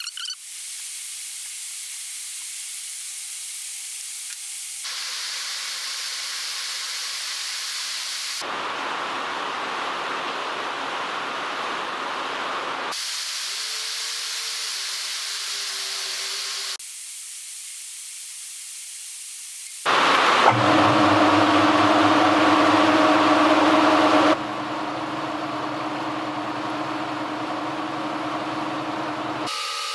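Restored RF-30 mill-drill running, with an end mill cutting steel, heard as a string of short clips that change abruptly every few seconds. The loudest stretch, about two-thirds of the way in, has a steady machine hum under a harsh hiss.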